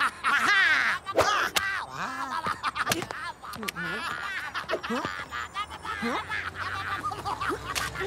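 Rabbids, the cartoon's rabbit-like creatures, chattering and giggling in high-pitched gibberish in many short calls, with sharp clicks and knocks among them.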